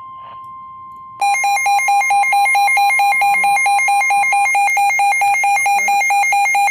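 Emergency Alert System alarm tones announcing a severe thunderstorm warning. A steady high electronic tone plays first, then about a second in a much louder, rapidly pulsing alarm starts, alternating between two pitches.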